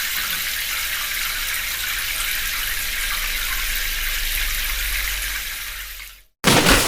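Water running steadily from a tap, a continuous hiss that fades out about six seconds in. After a brief silent gap, a different, louder water sound starts just before the end.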